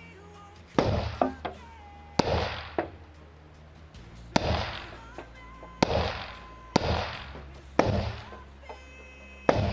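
HK MR223 semi-automatic rifle fitted with a suppressor, fired seven times at an uneven pace of about one shot every one to two seconds, each shot a sharp crack followed by a short echoing decay.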